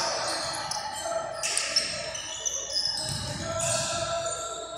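Basketball game sounds on a hardwood court: sneakers squeaking in short high chirps and a basketball bouncing a few times, with faint voices.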